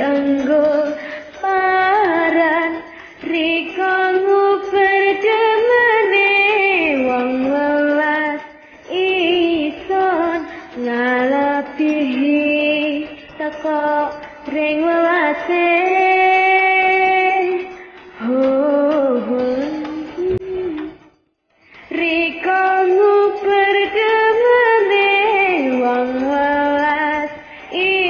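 A woman singing a slow melodic line with long held notes and sliding ornaments over a karaoke backing track. The sound cuts out briefly about three-quarters of the way through.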